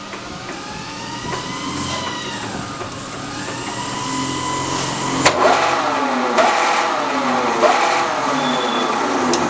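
1IS611V precision screw-cutting lathe running, its mechanical whine rising and falling in pitch several times. There is a sharp click about five seconds in, after which the pitch glides downward in steps.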